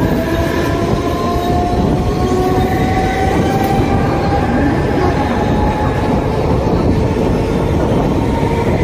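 Mumbai suburban electric local train running, heard from its open doorway: a loud, steady rumble of wheels on the track. Over it is the whine of the electric traction motors, rising slowly in pitch as the train gathers speed out of the station.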